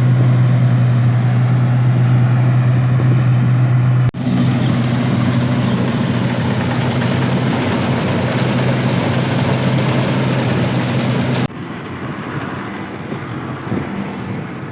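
Combine harvester running steadily while it harvests wheat: a loud engine hum with the clatter of the machinery above it. The sound changes abruptly twice, about 4 seconds in and again about 11 seconds in, and the last part is quieter.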